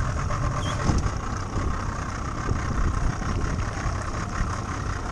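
Boat motor running steadily at a low, idling pace.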